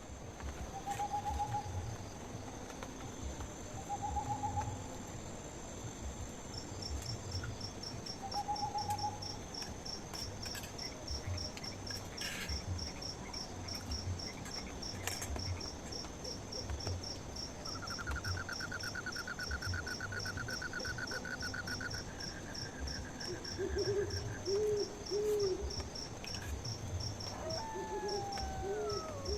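Night forest ambience: insects chirping steadily in a fast, even pulse, with a longer trill in the middle. Short hoot-like calls of a night animal come a few at a time, three near the start and two groups of three near the end, along with a couple of falling whistles.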